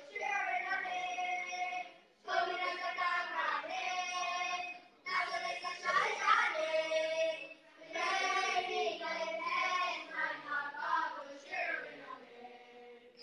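A boys' choir singing together, in sung phrases broken by brief pauses about two, five and eight seconds in.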